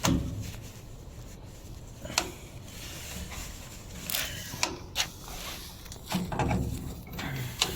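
Handling noises from hoses and cables being connected: a few sharp clicks and knocks, about two seconds in and again around four to five seconds, with rubbing and low bumping between them.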